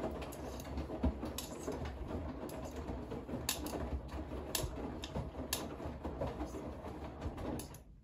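Bosch washing machine drum turning faster with a load of laundry tumbling inside, a steady running noise with a few sharp clicks, cutting off suddenly near the end as the drum stops.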